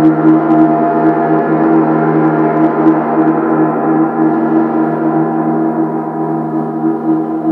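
Gong ringing in a sustained wash of many overlapping tones that waver and beat against each other, with a few light strokes in the first few seconds and a slight easing toward the end.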